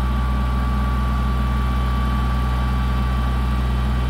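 Compact tractor's engine running steadily, an even low drone, while its front loader is held against the notched cedar trunk to push it over.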